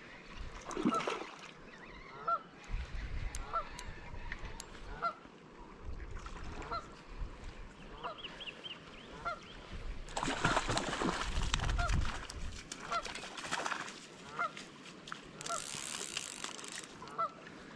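A goose honking over and over, about once every two-thirds of a second, over steady wind and river noise that swells to a gust about ten seconds in.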